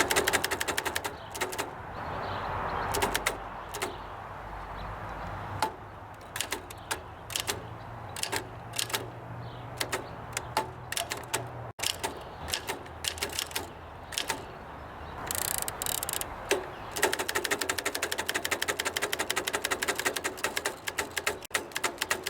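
A 1903 Oliver No. 3 down-strike typewriter being typed on: sharp key-and-typebar clacks, uneven at first. About two-thirds of the way through there is a brief scraping rasp, then a fast, even run of clicks to the end.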